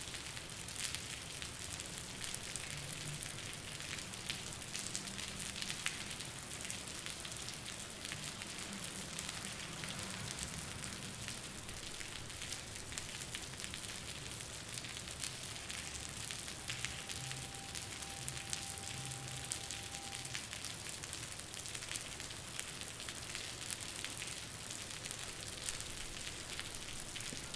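Steady rain splattering on concrete, a dense patter of many small drop impacts with drips among them.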